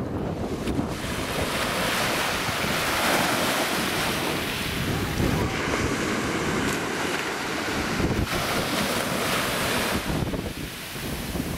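Small waves washing on a sandy beach, mixed with wind buffeting the microphone.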